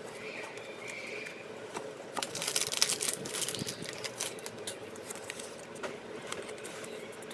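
Trading cards and card packs being handled: light clicks and taps, with a louder stretch of rustling about two seconds in, over a steady low hum.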